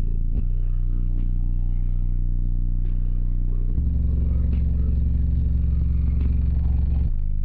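Deep bass notes played loud through four 15-inch DD subwoofers in a fourth-order blowthrough truck build, holding steady low tones that step to a heavier, louder note about four seconds in and change again near the end. Scattered short rattles and clicks sound over the bass.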